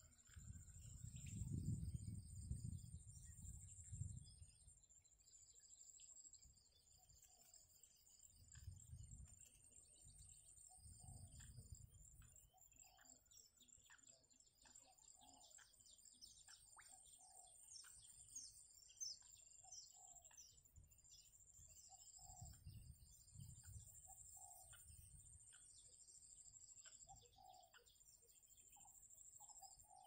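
Faint wild birds chirping and calling, with short lower calls repeating every second or two, over a steady high-pitched drone. A few low rumbles come and go, the loudest in the first few seconds.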